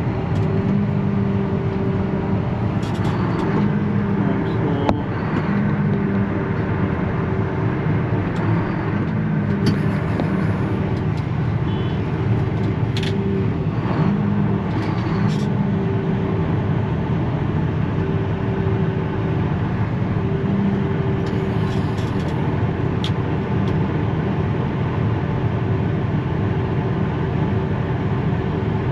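Tractor engine running steadily under load while it pulls a stuck truck out of a ditch by a chain, its pitch wavering a few times.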